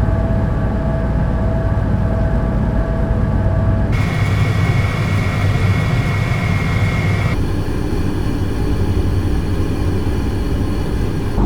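Household electric fan motors running steadily, three recordings one after another with abrupt changes about four and seven seconds in: the first with a steady hum-like tone over the rush of air, the second with a higher whine, the third a plainer whirr.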